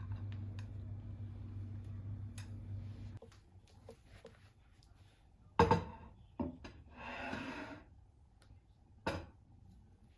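A steady low hum that cuts off suddenly about three seconds in, followed by a few knocks and clatters of small objects being handled and set down, with a brief rubbing or rustling sound in between.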